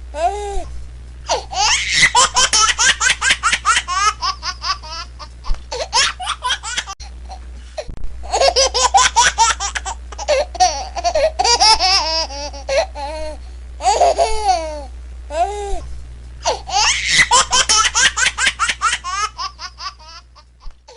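Baby laughing in repeated fits of quick, high-pitched giggles with short pauses between them, over a steady low hum. The laughter fades away near the end.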